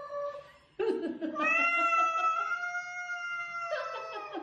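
Cat yowling at another cat in a standoff: a short rough growl about a second in, then one long drawn-out wailing yowl lasting over two seconds, then a couple of short growly calls near the end. It is a threat yowl from a cat with its ears back, swatting at the other.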